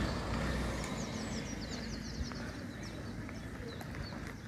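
Small birds singing in many quick, high chirps that slur downward, over a low background rumble that fades away.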